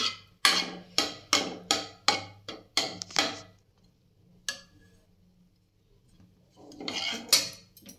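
A spoon knocking against a non-stick kadai about three times a second for a few seconds, then a single knock and a short scraping rattle near the end, as curd-and-spice masala is stirred in the pan.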